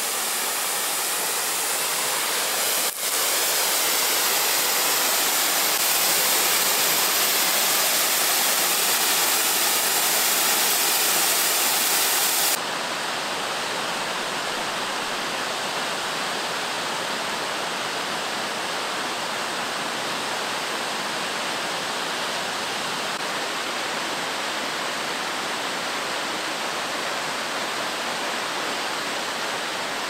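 Steady rush of water falling at a waterfall. About twelve seconds in the sound changes abruptly, with less high hiss.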